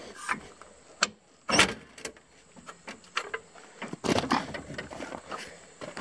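Irregular metal clanks, knocks and scrapes from a steel jack stand and floor jack being handled and set in place on gravel. The loudest knock comes about a second and a half in, and a cluster of smaller clatters follows around four seconds.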